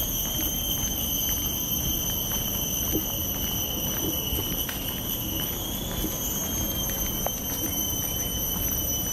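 Outdoor park ambience: a steady, high-pitched insect drone over a low rumble, with a few faint footsteps.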